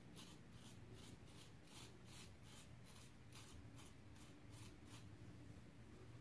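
Faint, scratchy scraping of a GEM 1912 single-edge safety razor with a GEM Red blade cutting lathered stubble, in short repeated strokes about three a second.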